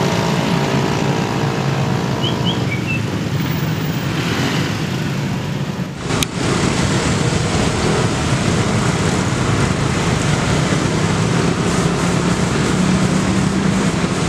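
Road traffic, with motorcycle and car engines running and passing. There is a brief dip and a click about six seconds in, after which the engine noise is steadier and fuller.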